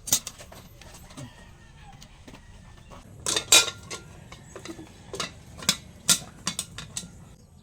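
Bananas being handled over a plate or dish: a few sharp clicks and knocks, the loudest a little after three seconds in and around six seconds.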